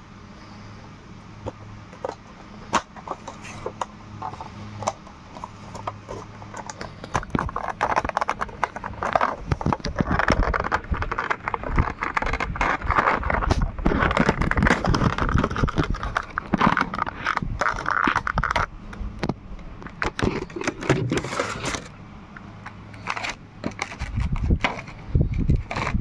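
A Funko Pop box and its plastic packaging being handled and opened: a stream of crinkling, scraping and clicking, busiest from about eight seconds in until about twenty-two seconds in.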